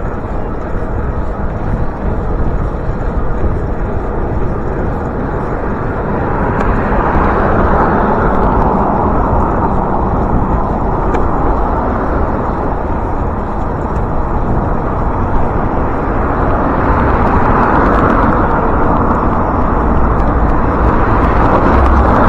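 Road traffic passing a moving bicycle, with wind rumbling on the microphone. The noise swells twice, as vehicles go by.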